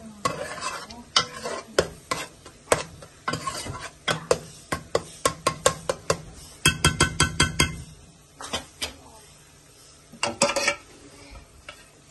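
A spoon stirring food in a cooking pot, knocking and scraping against the pot at an irregular pace. About seven seconds in there is a quick run of ringing taps on the metal.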